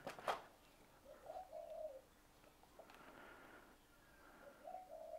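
Faint cooing of a dove, one short call about every three seconds, each dipping at the end. A few sharp clicks come right at the start.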